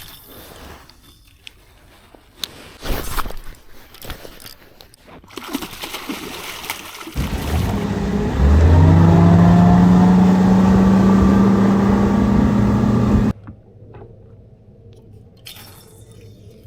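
Boat motor spooling up, its pitch rising for about a second, then running steady and loud before cutting off abruptly. Before it come scattered knocks and water sounds.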